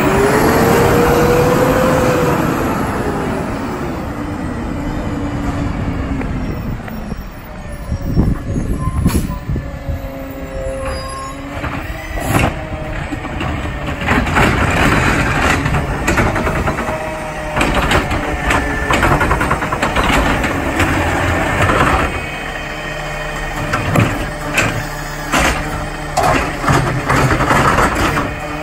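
Peterbilt 520 garbage truck with a McNeilus ZR automated side-loader arm at work: the engine revs up and falls back in a rising and falling whine at the start, then runs on under the hydraulic arm, with repeated clanks and knocks from the arm and carts.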